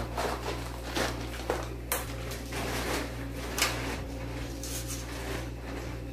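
Kitchen utensils knocking and scraping against a dish while lasagna sauce is spread, a handful of light knocks with the sharpest about three and a half seconds in, over a steady low hum.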